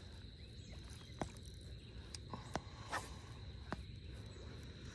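Quiet handling of a baitcasting rod and reel while retrieving: about five faint clicks and taps, the loudest about three seconds in, over a faint steady high tone.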